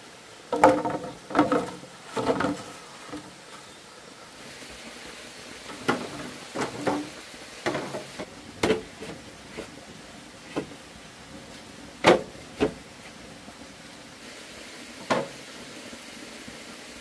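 Irregular wooden knocks and clacks, about a dozen, bunched in the first couple of seconds and then spaced out, as wood is handled and set down, over a steady faint hiss.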